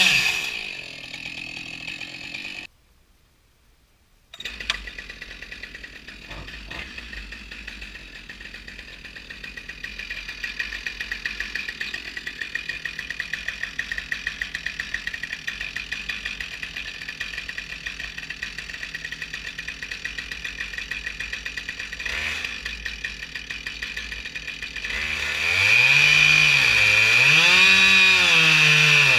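Husqvarna 572 XP two-stroke chainsaw on an Alaskan chainsaw mill, running. Its pitch falls at the start, then it breaks off briefly. It runs steadily for a long stretch, and near the end it comes in louder, revving up and down.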